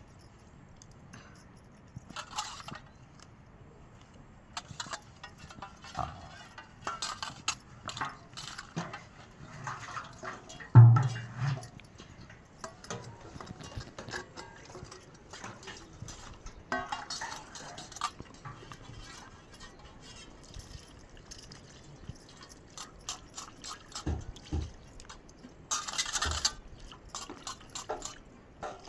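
Dishes and utensils clinking, with liquid sounds and scattered clicks, and one heavy thump about eleven seconds in.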